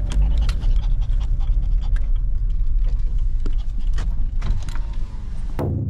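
A small Chihuapoo dog panting in a van's cabin over the low rumble of the engine; the sound cuts off abruptly near the end.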